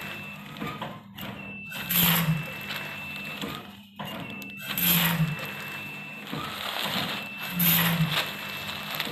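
Mini fully automatic packaging machine running through its sealing cycle: a short hiss with a brief low hum about every three seconds, over a steady high-pitched whine. Foil packets crinkle as they are handled.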